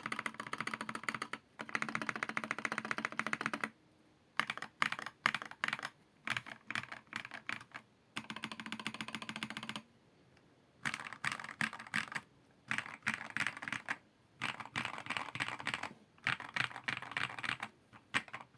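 Typing on a Redragon Fizz mechanical keyboard fitted with lubed Akko Matcha Green switches, XDA keycaps and foam dampening: fast runs of keystrokes broken by a few short pauses and slower, separate key presses.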